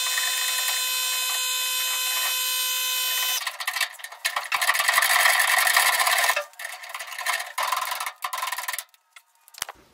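A power tool motor runs with a steady high whine on the truck's rear suspension hardware, then cuts off about three and a half seconds in. Irregular rasping, scraping noises in several bursts follow.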